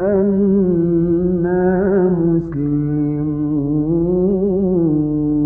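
A man's voice in melodic mujawwad-style Quran recitation, stretching the single word 'bi-annana' over long held notes with a wavering ornament. About halfway through it steps down to a lower note and holds it steady.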